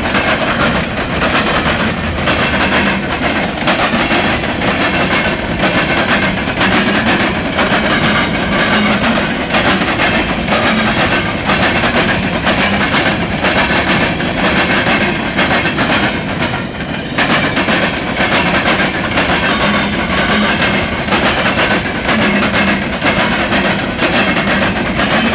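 Norfolk Southern freight train's cars rolling past close by, a steady, loud run of wheel clicks and clatter from the wheels passing over the rail joints.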